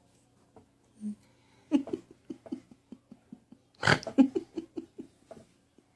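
Weird non-word vocal sounds: short quick grunt- or giggle-like pulses, about four a second. About four seconds in comes a sharp breathy burst, followed by more quick pulses.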